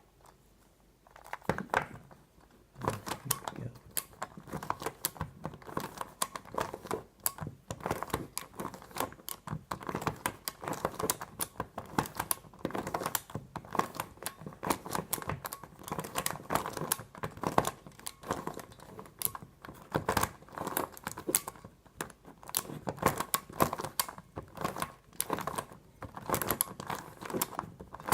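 Meffert's Skewb Xtreme plastic twisty puzzle being turned quickly by hand while it is solved: a dense, irregular run of plastic clicks and clacks as its pieces rotate, starting about a second and a half in.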